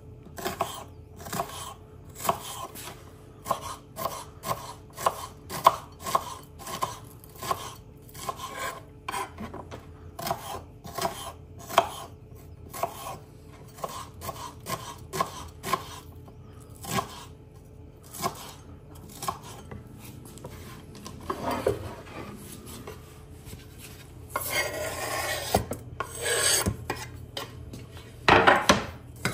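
Kitchen knife chopping onion on a wooden cutting board, in sharp regular strokes about two a second. Near the end come a few seconds of scraping and rubbing.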